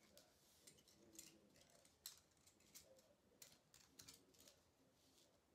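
Faint, scattered light clicks and scrapes of coins and fingertips on a close-up magic mat, about a dozen small ticks, irregularly spaced.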